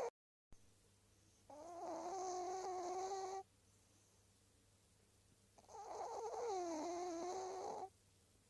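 Snoring: two drawn-out snores of about two seconds each, roughly four seconds apart, with the tail of an earlier snore cut off abruptly right at the start.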